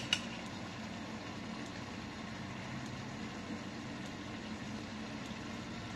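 A steady low hum of a running appliance motor, with a short sharp click right at the start.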